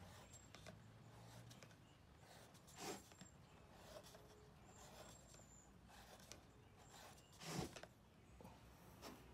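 Near silence, with faint pencil strokes on PVC pipe and light handling of the pipe; two short soft scrapes stand out, about three seconds in and near the end.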